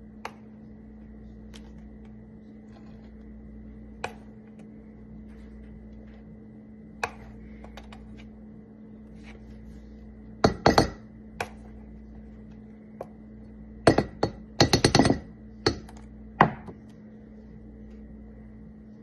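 Metal measuring spoon clinking and tapping against the rim of a stainless steel pot as spoonfuls of cocoa powder are added. There are single clinks here and there and quick runs of taps about halfway through and again a little later, over a steady low hum.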